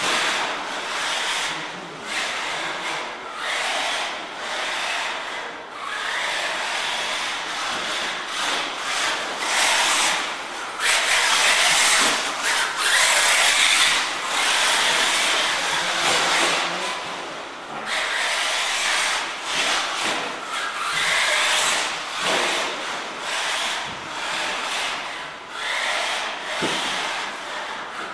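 1/8-scale Bergonzoni R1 electric buggy with a brushless motor driving on a loose dirt track: a rough, scrabbling noise of the drivetrain and tyres on dirt that swells and fades as it accelerates, brakes and passes. It is loudest about half-way through.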